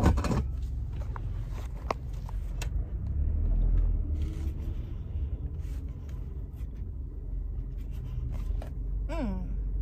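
Low, steady rumble of a car heard from inside the cabin, with a sharp knock at the start and a few light clicks.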